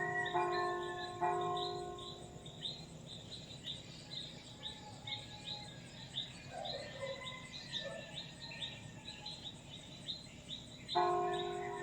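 Church bell struck twice in the first second and a half, each stroke ringing out, then birds chirping with quick repeated high chirps and a few lower calls. The bell strikes again near the end.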